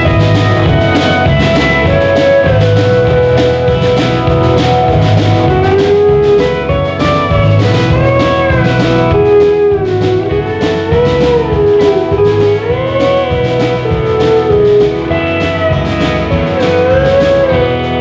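Live country-rock band playing an instrumental break. A lead guitar plays a melody of bending, gliding notes over a steady drum beat and bass.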